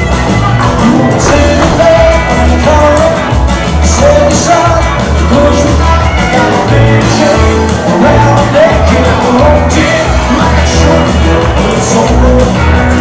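Live rockabilly song: a man singing over electric guitar and upright double bass, the bass notes pulsing steadily underneath.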